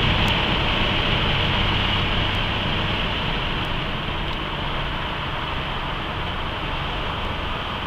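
Inside the cabin of a 1997 Buick LeSabre coasting off the throttle: steady road and tyre noise with wind, the engine note dropped away, slowly getting quieter as the car slows into a curve.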